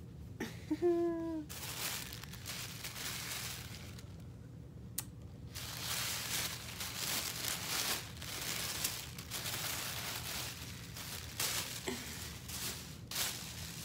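Rustling and crinkling of fabric and packaging as baby clothes and a blanket are handled and unpacked, with a short hummed voice sound about a second in and a single click around the middle.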